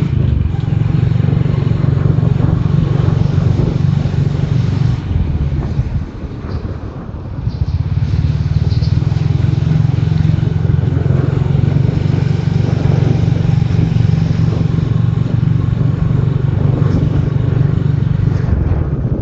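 Motorcycle engine running and wind rushing past, heard from the pillion seat of the moving motorbike. The sound drops for a couple of seconds about six seconds in, then picks up again.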